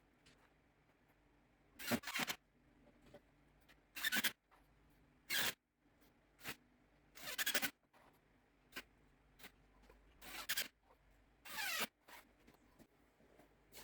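Short scraping and rubbing sounds, six or so at irregular intervals, some with a squeak in them, with a few light knocks and clicks between.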